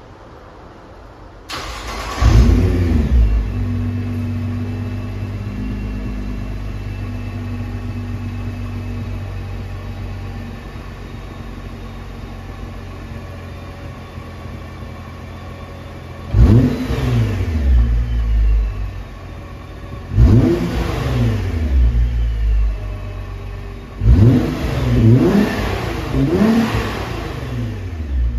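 Nissan R35 GT-R's twin-turbo 3.8-litre V6 (VR38DETT) on its stock exhaust starting about a second and a half in, with a brief flare of revs. It then idles and gradually settles. In the second half come five sharp throttle blips, the last three closer together.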